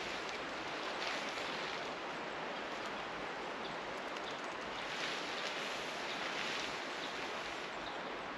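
Steady rushing of wind through a conifer forest, swelling and easing gently every second or two.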